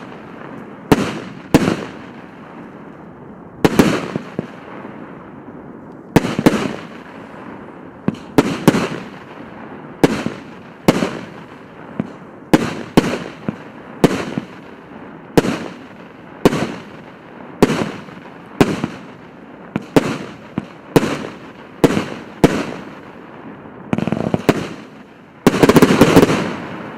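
150-shot consumer firework battery (cake) firing shot after shot, about one sharp bang a second, some in quick pairs, each trailing off in an echo. Near the end a rapid cluster of bangs goes off together as the finale.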